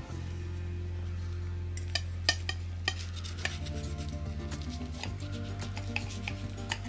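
Knife and fork clicking and scraping against a plate while cutting a baked pancake dish, with a few sharp clinks in the middle. Steady background music plays underneath.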